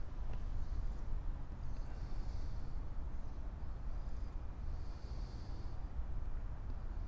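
Steady low wind rumble on the microphone, with two soft, breathy exhales from a pipe smoker about two and five seconds in.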